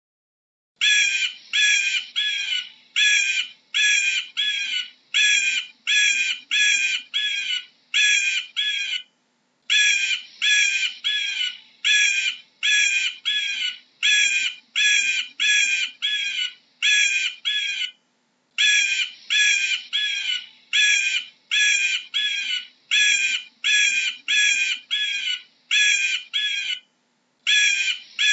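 Bald eagle calling: a long series of short, high, piping notes, about two a second, in runs of several seconds broken by brief pauses. The calls start about a second in.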